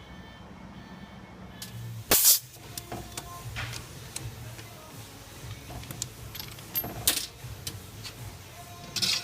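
Several sharp knocks and clatters, as of metal engine parts being handled on a bench, over a low steady hum; the loudest comes about two seconds in.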